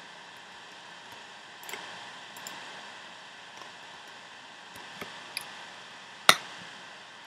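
Steady microphone hiss with a few faint, scattered clicks of computer keys or mouse buttons, and one much louder sharp click with a short ring about six seconds in.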